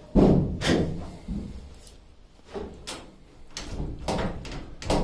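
A string of metal clunks and knocks, the loudest just after the start and another near the end, as a locomotive's air-filter cassette and its housing panel are handled and fitted into place.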